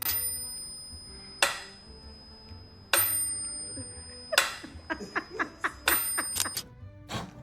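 A series of sharp, sudden sounds, several leaving a high ringing tone: four spaced about a second and a half apart, then a quick run of about eight near the end.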